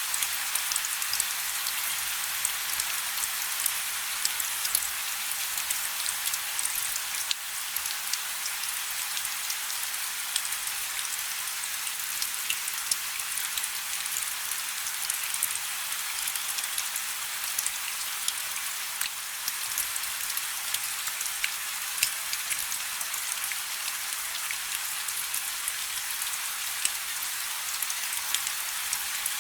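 Steady rain: an even hiss of falling drops, with many single drops ticking sharply on a surface.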